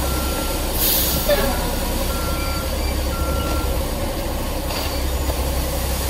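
Heavy concrete mixer truck running with a steady low rumble while a back-up alarm beeps four times, about once a second, then stops.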